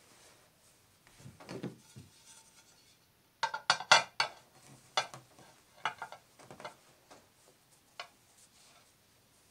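White ceramic plates being wiped with a cloth and handled: a soft rubbing of the cloth, then a quick run of sharp clinks about three and a half seconds in as the plates knock together, followed by a few single knocks.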